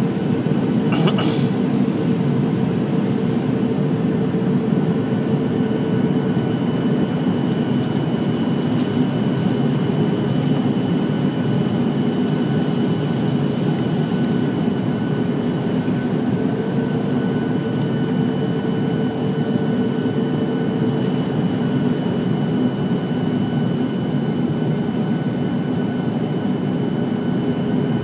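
Jet airliner cabin noise during the approach to landing: the engines' steady drone with a thin steady whine above it, heard from inside the cabin. A brief higher-pitched sound cuts in about a second in.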